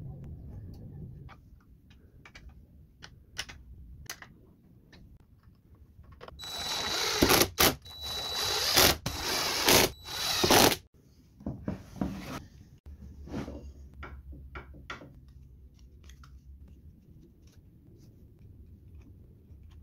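Cordless drill-driver driving screws into plywood in several short bursts, each with a steady whine, the loudest stretch about halfway through, followed by two brief shorter runs. Light clicks and knocks of parts being handled are scattered around them.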